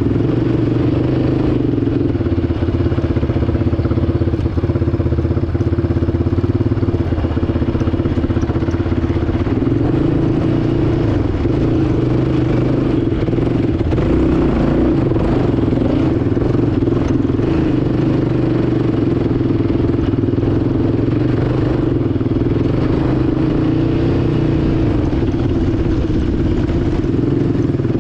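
Engine of a Yamaha ATV running continuously under load while climbing a dirt trail, its pitch dipping and rising a little as the throttle changes.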